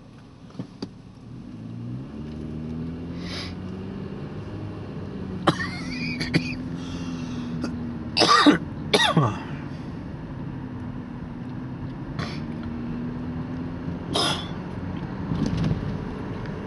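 Car engine heard from inside the cabin, pulling harder with its pitch climbing, then running steadily, and climbing again partway through. A person coughs twice, sharply, about halfway through (the loudest sounds), and once more near the end.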